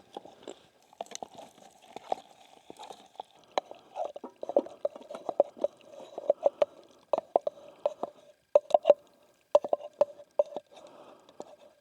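A spoon scraping and clicking against a cooking pot while eating, in quick irregular taps that each leave a brief ringing note.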